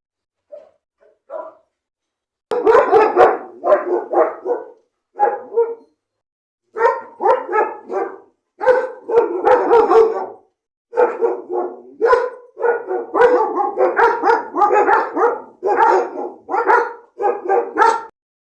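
Dog barking: a few faint barks at first, then from about two and a half seconds loud barking in quick runs of several barks with short pauses between, not very angry in tone.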